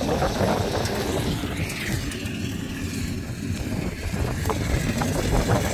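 Wind rumbling on the microphone over the distant engine of a rice combine harvester working the field.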